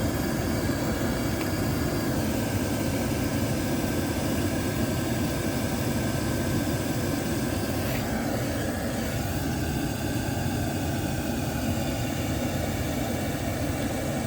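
Oil boiler burner firing and running steadily after being bled and reset, a constant even noise of the burner's fan and flame: the burner has lit and stayed on once the air was cleared from the oil line.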